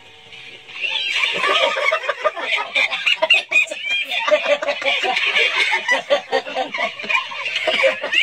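Several young men bursting into choppy, stifled laughter about a second in, some of it through a hand held over the mouth.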